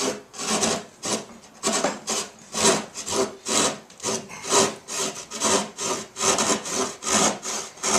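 Hand drywall saw cutting through a drywall panel in rhythmic back-and-forth strokes, about two a second.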